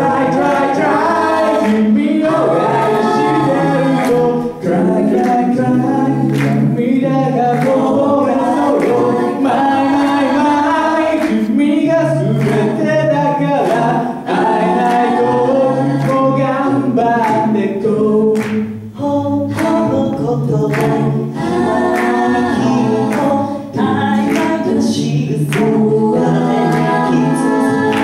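Five-voice a cappella group singing a pop song through microphones and a PA, with a low sung bass line under close harmonies and vocal percussion clicking out a steady beat.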